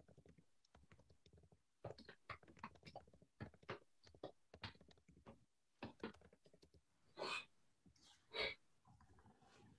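Faint, irregular computer keyboard typing, with two louder short breathy sounds about a second apart near the end.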